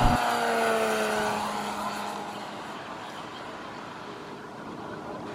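Radio-controlled model airplane's engine passing by, its pitch sliding down over the first two seconds as it moves away, then fading to a fainter steady drone.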